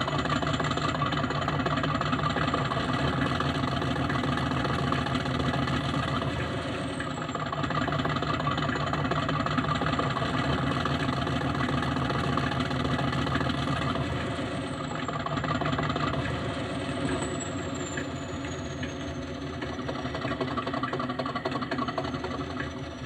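Sound decoder in a Heljan Class 50 model locomotive playing a recorded Class 50 diesel engine working hard (the 'thrash'), heard through the model's small speakers, the engine note swelling and easing a little. A faint high whine slides up and down in pitch.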